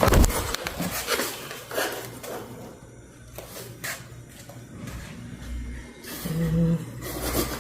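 Rustling and handling of a saree, with a few soft knocks and bumps at irregular times.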